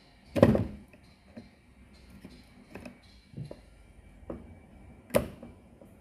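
Screwdriver working at the plastic locking clips of a condenser tumble dryer's drain pump to release it: two loud, sharp clicks, about half a second in and near the end, with a few lighter taps and knocks between them.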